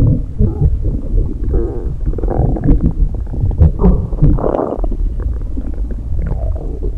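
Human stomach rumbling and gurgling in an irregular run of low gurgles and small pops, with a louder bubbling gurgle about four and a half seconds in.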